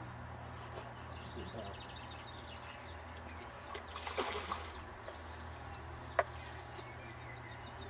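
A hooked carp splashing and thrashing at the pond surface about four seconds in, over a steady low hum and faint bird chirps. A single sharp click comes a couple of seconds later.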